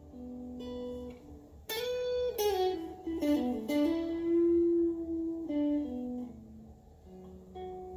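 Electric guitar through a Blackstar amplifier playing a slow blues lead line, one note at a time. A sharp picked note comes about two seconds in, then a note slides down in pitch into a long held note, and a short run of notes steps downward. A steady low amp hum runs underneath.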